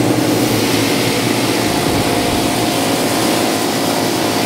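Pressure washer running, its jet spraying onto a rider's boots and motocross kit: a loud, steady hiss of water over the hum of the washer's pump.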